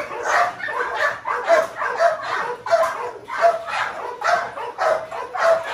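A dog barking over and over in a steady run, about two barks a second.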